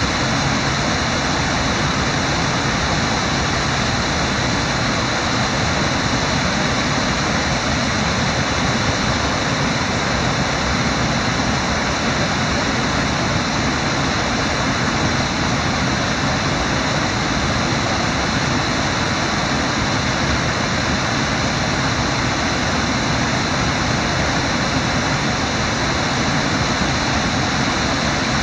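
Fast-flowing river water rushing through whitewater rapids, a steady, unbroken noise.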